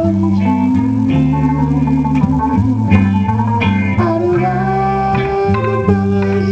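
Live band music: electric guitars and bass guitar playing, with sung vocals over a steady bass line.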